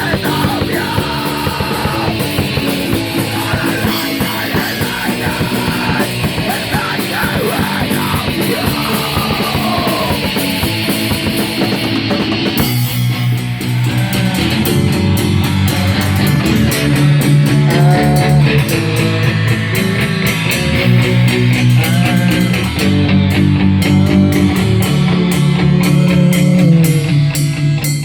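Rock song with electric guitars and drums. About halfway through it drops from a dense, distorted full-band passage into a sparser section led by guitar over sustained bass notes.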